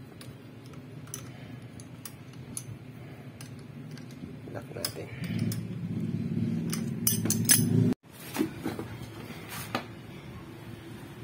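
Light metallic clinks and ticks of a wrench on the clutch cable adjuster and locknut at the clutch arm of a Honda TMX 125 Alpha engine, setting the clutch free play. A low rumble builds in the background from about five seconds in and cuts off abruptly near eight seconds.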